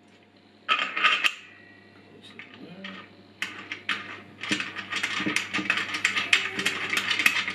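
Metal parts of a Powerfix angle grinder stand being handled and fitted together: a short metallic clatter about a second in, then a run of rapid clicks and rattles from about halfway on.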